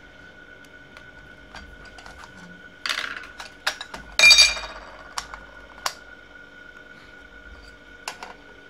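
Metal case parts of a PreSonus TubePre V2 preamp clinking and clattering as they are handled and pushed back together. Scattered light clicks, a scrape near three seconds in, and a louder ringing metal clank just after four seconds, over a faint steady high whine.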